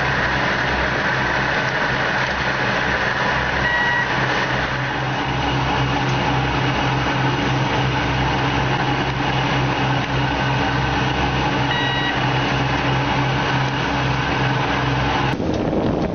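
Fishing boat's engine running steadily under way, with a low even pulsing and a short beep about four seconds in and again about twelve seconds in. Near the end it gives way abruptly to wind on the microphone and rushing water.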